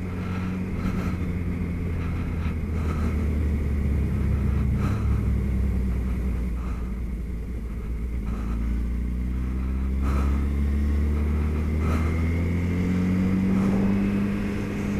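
Suzuki B-King's inline-four engine running as the bike rolls along at moderate speed. Its note eases down slightly midway, then climbs steadily from about ten seconds in as the bike speeds up.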